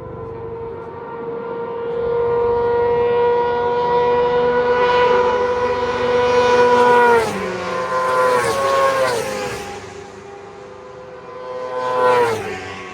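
Racing motorcycles passing one after another at full speed. A high engine note builds for several seconds and drops sharply in pitch as the first bike goes by about seven seconds in, two more pass close behind it, and another passes near the end.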